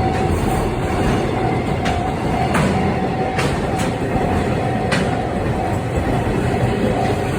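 Freight train rolling past a level crossing, a loud steady rumble with wheels clicking over the rail joints several times. The crossing's warning signal sounds on top in a repeating pulsed tone.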